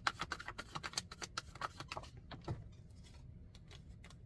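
Tarot cards being shuffled by hand: a quick run of papery clicks, about seven a second, that thins out after about two seconds into a few separate clicks.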